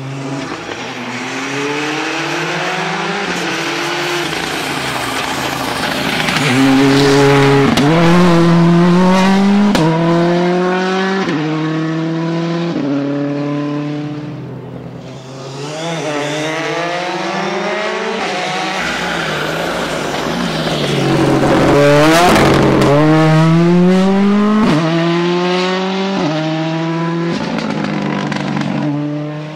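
Two rally cars, a Hyundai i20 and then a Ford Fiesta, each accelerating hard out of a corner on wet tarmac. Each engine's revs rise and drop back repeatedly as it shifts up through the gears. The first car's sound fades about halfway through, and the second car comes in shortly after and is louder.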